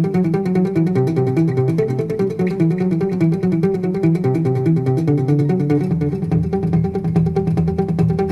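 Background music led by guitar, with a steady pulse; a bass line comes in about six seconds in.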